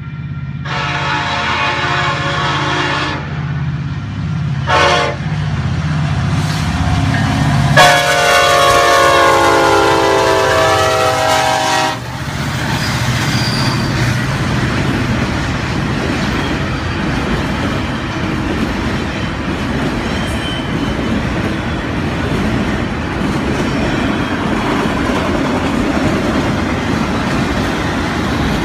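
Union Pacific diesel locomotives sounding a K5LA five-chime air horn for a grade crossing: a long blast, a short one, then a long one held until the engines reach the crossing and cut off about twelve seconds in, over the diesels' engine hum. After that the autorack cars roll past with a steady rumble and clatter of wheels on rail.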